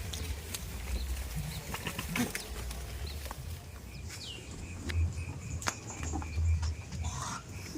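Farmyard ambience: scattered sharp clicks and knocks over a low rumble, with a short falling bird whistle about halfway through and a faint rapid high pulsing in the second half.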